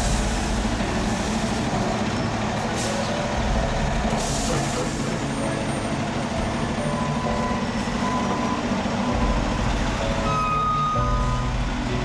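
Diesel engines of heavy dump trucks running close by, a steady low rumble. A few short high tones sound in the second half.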